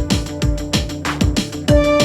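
Background music with a steady electronic beat: a kick drum about four times a second under sustained synth notes.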